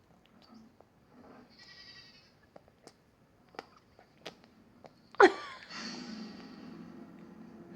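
Baby's bleat-like vocalization: a faint high whine early on, then a sudden loud cry about five seconds in that trails into a drawn-out moan, with a few small clicks before it.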